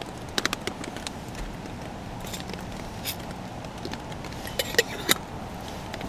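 Dry green coffee beans being measured and poured into a stainless steel camp cup: scattered sharp clicks and rattles, a short cluster about half a second in and the loudest clicks near the end.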